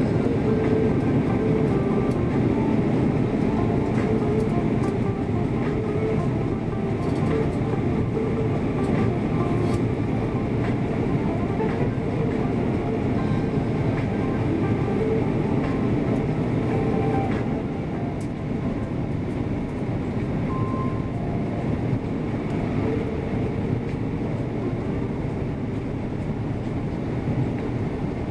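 Steady cabin noise of an Airbus A340-600 in descent, heard from a window seat beside the wing: the rumble of its Rolls-Royce Trent 500 engines and airflow. It dips a little in level about two-thirds of the way through.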